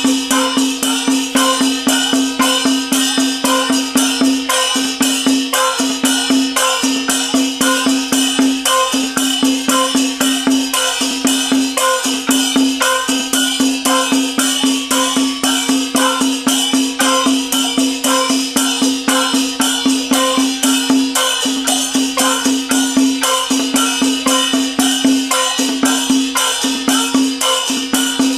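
Chinese gong-and-drum (luogu) ritual percussion music: a fast, even beat of about three strikes a second over a steady held tone.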